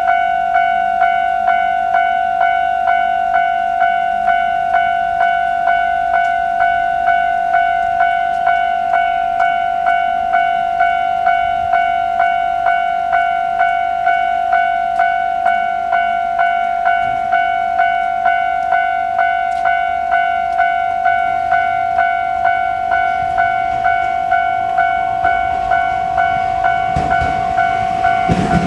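Japanese railway level-crossing electronic warning bell ringing in its standard tone, a steady ding repeating about twice a second and quite loud, not turned down once the barriers are lowered. Near the end a train's rumble rises as it reaches the crossing.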